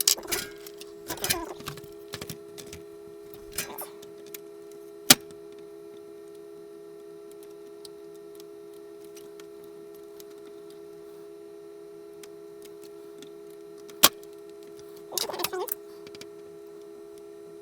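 Small handling and scraping noises from work on the VIC-20's jammed power switch, with two sharp clicks about nine seconds apart, over a steady hum.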